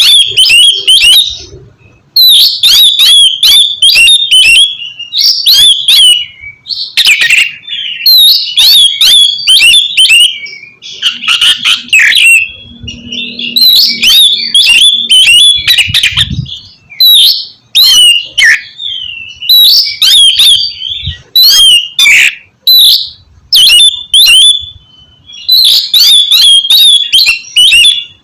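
Oriental magpie-robin (kacer) singing loudly in a rapid, varied string of whistled and rasping notes. The song comes in phrases of a second or two, separated by short pauses.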